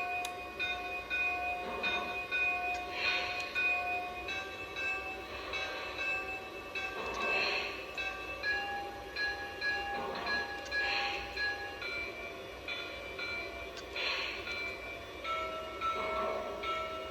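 A Lionel Legacy steam locomotive's onboard sound system running its idle sounds: rushes of steam or air hiss swell every three to four seconds over steady tones that change pitch every few seconds.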